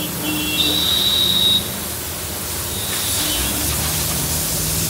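Steady hiss of water spraying from a hose against a steel dump-truck body. A brief high-pitched tone sounds within the first second and a half, and a low steady engine hum joins near the end.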